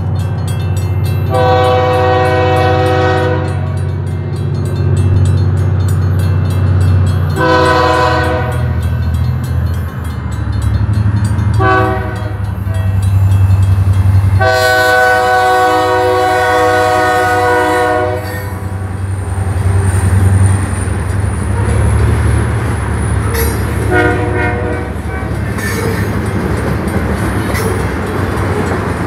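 Freight diesel locomotive's multi-tone air horn blowing the grade-crossing signal: two long blasts, a short one, and a final long one, over the steady low rumble of the engine. A faint short blast sounds again a little later as the freight cars roll through the crossing.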